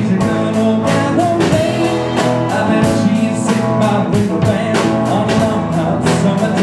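Rock band playing: a man singing over guitar, bass and drums with a steady beat.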